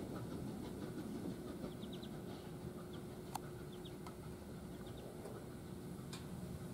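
Low, steady rumble of Frisco 1630, a 2-10-0 Decapod steam locomotive, and its train, growing slightly fainter as it moves away. A few short bird chirps are heard about two seconds in, and there are two sharp clicks.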